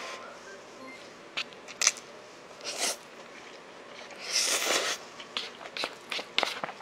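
A person eating instant ramen noodles with chopsticks: a short slurp about three seconds in and a longer slurp about four and a half seconds in, among sharp mouth and chopstick clicks. The loudest click comes about two seconds in.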